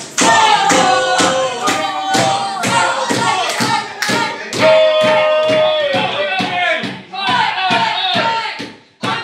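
Live rock band playing: drum kit keeping a steady beat under a sung melody, with one long held note midway through. The music drops out for a moment just before the end.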